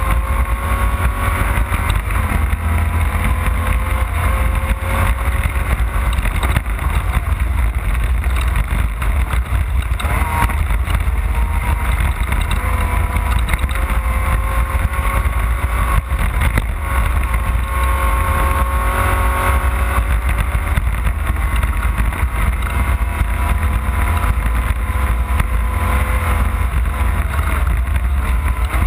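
Off-road race car's engine running hard, its pitch rising and falling again and again with throttle and gear changes, over a heavy constant low rumble.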